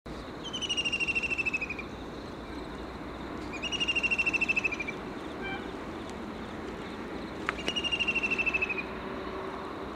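A high, rapidly pulsed animal trill, heard three times, each about a second and a half long and falling slightly in pitch, over a steady background hiss.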